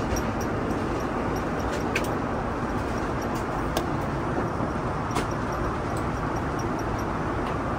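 Steady airliner cabin noise in flight: an even rushing drone of engines and airflow, with a few light clicks from handling the card and tableware.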